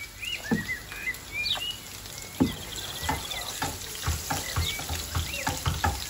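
Slivered garlic sizzling in hot oil in a frying pan, with a knife and then a wooden spatula knocking and scraping against the pan, the stirring knocks coming thick and fast from about three seconds in. Birds chirp throughout.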